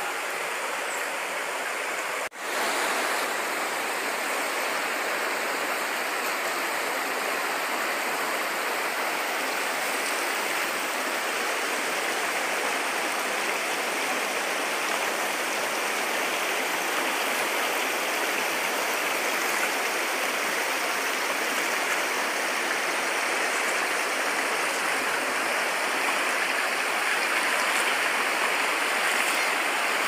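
Shallow river rushing steadily over rocks and boulders, a continuous even wash of running water. The sound cuts out for an instant about two seconds in.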